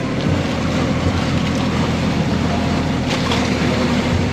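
Engine of a motorized bangka outrigger boat running at a steady cruise, with the wash of water and wind going past.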